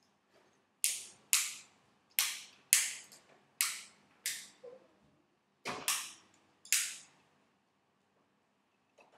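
Hands clapping together in a hand-clapping game: about nine sharp claps in an uneven rhythm, roughly one every half second, stopping a couple of seconds before the end.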